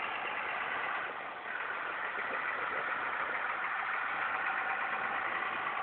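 A car engine running with a steady hum.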